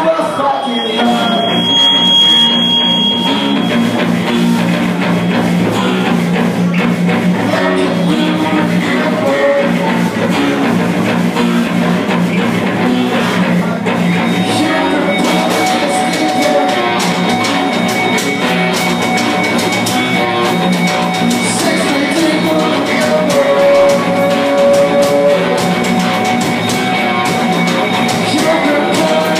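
Live metal band playing: several electric guitars over a drum kit, continuous and loud.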